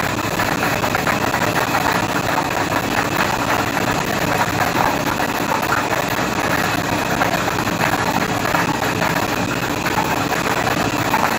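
Rotating acrylic lottery drum with a steady, dense rattle of many plastic balls clattering against each other and the drum walls as it turns.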